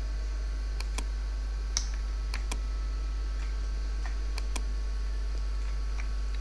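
Computer mouse buttons clicking, several times and partly in quick pairs, over a steady low electrical hum.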